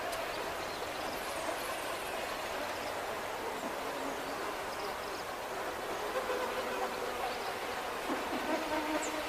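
A dense swarm of lake flies, tiny two-winged midges, buzzing as a steady hum.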